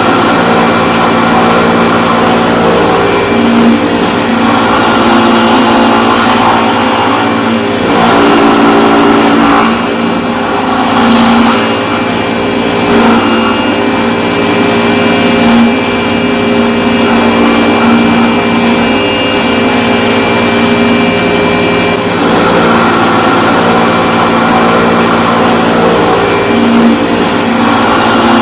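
Power tool carving timber, its motor running as a continuous drone with small rises and dips in pitch.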